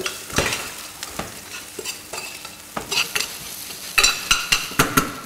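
Ginger, garlic, sliced chilli and broccoli stems sizzling as they are stir-fried in a hot oiled pan, with a utensil knocking and scraping against the pan. About four seconds in comes a quick run of sharp clinks, five in about a second.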